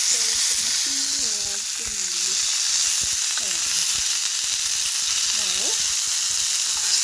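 Homemade chicken longganisa sausages frying in hot coconut oil in a pan: a steady, continuous sizzle.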